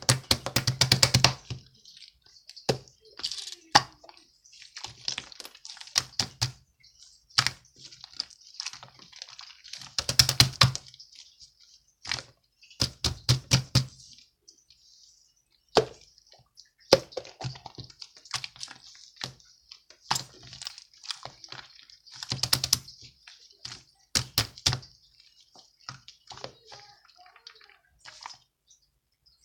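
Rapid clicking and tapping in runs of a second or two, with short pauses between; the loudest runs come near the start and about ten seconds in.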